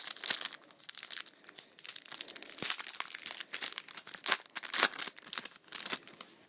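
A Yu-Gi-Oh booster pack's foil wrapper being crinkled and torn open by hand, a dense, irregular crackling that stops about six seconds in.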